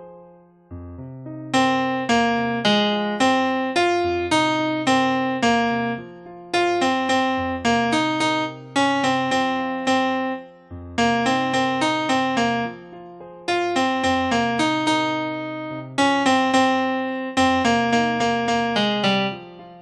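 Piano-type keyboard playing a slow tune with chords over bass notes, each note struck and then dying away, in short phrases with brief pauses between them.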